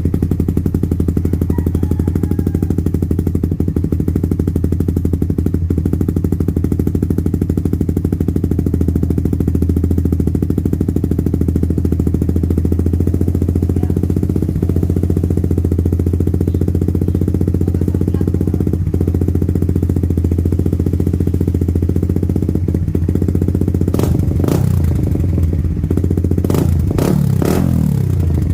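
Suzuki Raider 150 Fi's single-cylinder four-stroke engine idling steadily through an aftermarket VMAX exhaust, then revved in a few quick throttle blips near the end.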